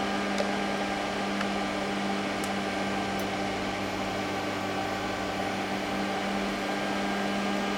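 MOSFET welding inverter (Zubr, also sold as Don 250P) running under a test load at about 100 amps: its cooling fan rushes steadily over a constant electrical hum.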